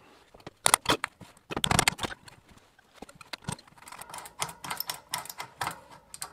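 A Sturmey Archer three-speed hub's threaded ball ring being unscrewed by hand: a run of sharp metallic clicks and rattles, densest about one and a half to two seconds in, then lighter clicking.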